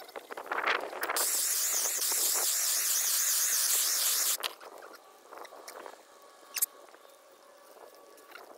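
A loud, steady hiss with a slight wavering flutter starts about a second in and stops abruptly about three seconds later. A single sharp click comes a couple of seconds after it.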